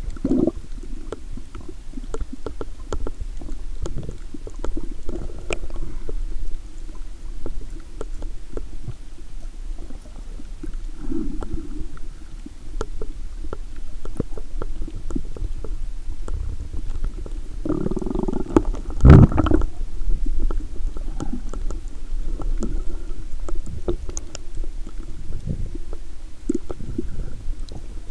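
Muffled underwater sound picked up by a camera held below the surface: a low rumble of moving water with scattered faint clicks, and one louder swish about two-thirds of the way through.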